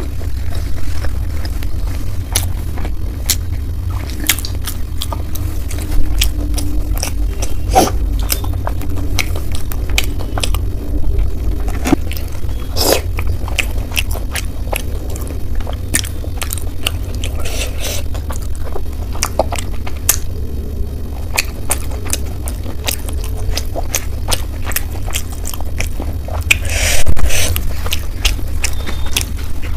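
Close-miked eating sounds: chewing and biting with many small wet mouth clicks, over a steady low hum. A brief louder burst of noise comes near the end.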